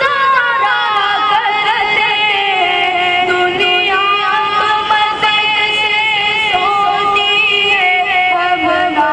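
A boy's voice singing a naat, an Urdu devotional poem in praise of the Prophet, into a microphone, with long held notes that glide and waver in ornaments.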